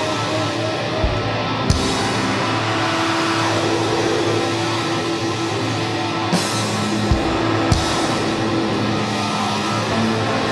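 Live rock band playing: a loud wash of distorted electric guitar with held tones, broken by a handful of isolated drum and cymbal hits rather than a steady beat.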